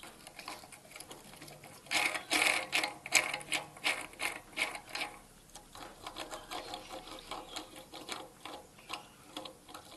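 Ball bearings on a Rong Fu 4x6 metal bandsaw's blade guide spun by hand, giving a notchy rattle that is loudest from about two seconds in for a few seconds, then fainter. The worn guide bearing pinches up and stops, which the owner blames for the blade locking up and snapping.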